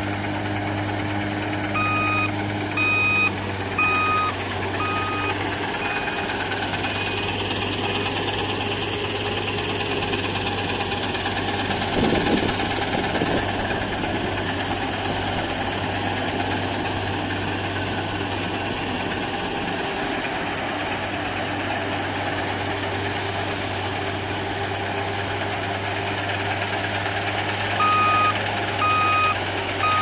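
New Holland TC5.30 combine harvester running steadily while harvesting chickpeas, a constant low engine hum under the clatter of the machinery. A warning beeper sounds about once a second from about two seconds in for several beeps, and again near the end.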